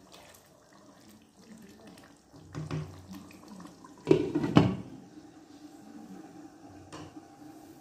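Beef curry simmering in a non-stick wok while a silicone spatula stirs it. About four seconds in, a glass lid is set down on the wok with two loud knocks.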